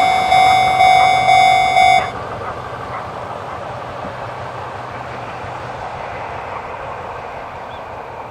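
Electronic level-crossing warning bell of the Chichibu Railway type ringing a repeating metallic tone about twice a second, then stopping about two seconds in. A steady rushing noise with a low hum continues after it.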